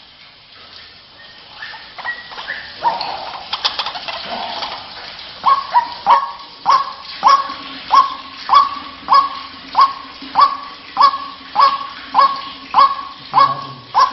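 White-breasted waterhen (ruak-ruak) calling, a lure call for trapping the bird: a few irregular notes, then from about five seconds in a steady, loud series of repeated croaking notes, nearly two a second.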